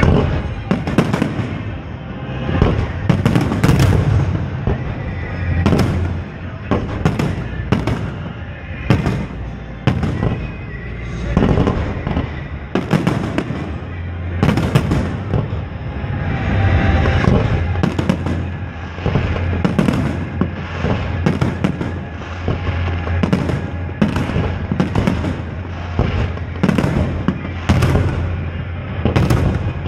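A fireworks display with aerial shells bursting in quick succession: a continuous run of sharp bangs and booms, one or two a second, over a steady low rumble.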